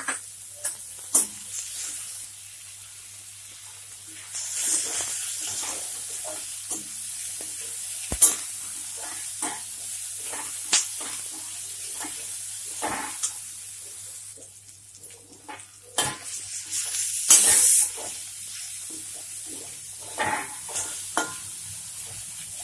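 Sliced onions, green chillies and capsicum sizzling in hot oil in a metal kadhai, stirred with a slotted metal spoon that scrapes and clicks against the pan. The sizzle swells louder briefly a few seconds in and again late on as the vegetables are tossed.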